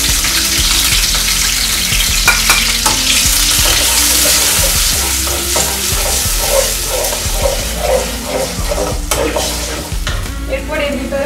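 Onion and garlic paste frying in hot oil in an aluminium kadai, sizzling and hissing as it is stirred and scraped with a metal spatula. The sizzle slowly thins as the paste cooks.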